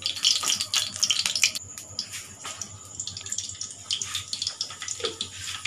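Cumin seeds crackling and sizzling in hot oil in a kadhai, a dense irregular spatter of small pops.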